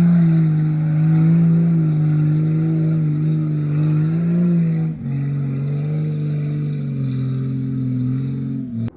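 Jeep engine running under throttle, its pitch wavering slightly. The pitch steps down about five seconds in, and the sound cuts off abruptly just before the end.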